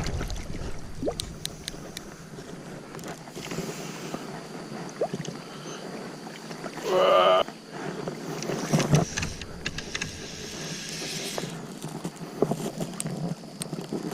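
River water rushing and splashing with wind on the microphone, broken by scattered sharp clicks and a brief pitched whine about seven seconds in.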